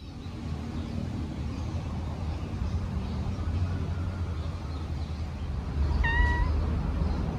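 A cat meows once, briefly, about six seconds in, over a steady low rumble.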